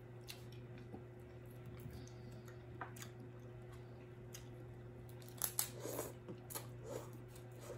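Quiet eating sounds: soft chewing and small clicks, with a louder slurp of batchoy noodles about six seconds in, over a steady low hum.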